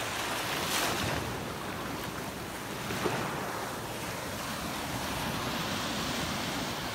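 Small sea waves breaking and washing up over sand, with a surge of wash about a second in and another around three seconds.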